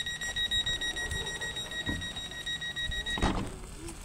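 A steady high-pitched electronic warning tone that cuts off about three seconds in, just as a thump sounds, over a low rumble and faint voices.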